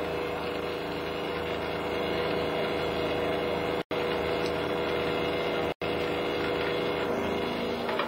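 Ship's crane winch motor running steadily as the wire cable winds onto its drum, hoisting a marble slab from the sea; an even mechanical hum that cuts out for an instant twice.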